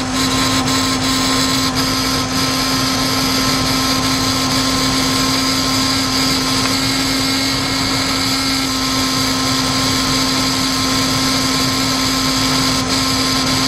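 Ford 5.4-litre V8 of a 2004 Lincoln Navigator running, heard up close in the engine bay as a steady whirring with a constant whine; the engine has a cylinder misfire and runs rough.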